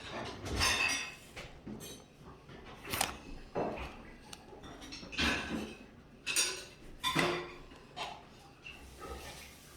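Pokémon trading cards and their foil booster-pack wrapper being handled: irregular crinkling, rustling and sliding of card stock, with a few sharp clicks and snaps.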